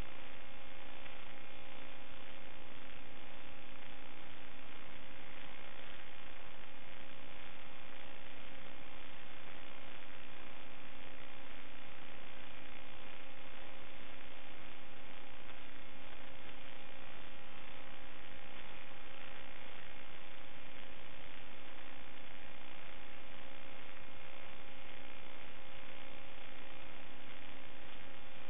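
Steady electronic hum and hiss with a few fixed tones that never change while the drone flies: noise on the audio channel of the analog FPV video link as recorded by the DVR, not the motors.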